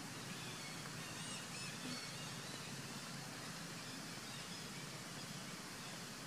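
Outdoor ambience: a steady background hiss and low hum, with a few faint, short high chirps in the first two seconds.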